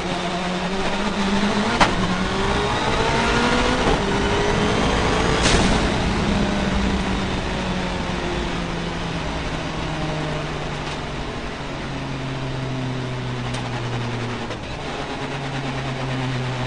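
Time attack race car's engine heard from inside the cockpit, pulling up in pitch under acceleration for the first few seconds, with a sharp crack about five and a half seconds in. Then the revs drop away as the car slows and settle into a steadier, lower drone.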